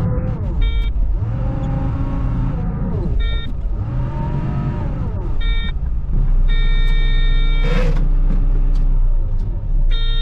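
Loader engine revving up and down as it works, with its back-up alarm beeping in short bursts every couple of seconds.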